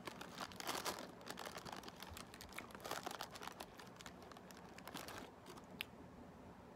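Thin clear plastic bag crinkling and rustling as a hand rummages inside it, loudest about a second in and again about three seconds in. A single sharp click follows near the end.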